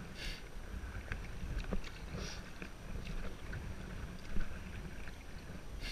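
Kayak paddle strokes dipping and splashing in the river about every two seconds, over a steady low rumble, with a few light knocks.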